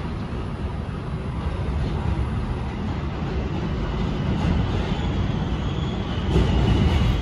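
R68 subway train approaching on elevated track: a steady low rumble that slowly grows louder, swelling a little about six seconds in.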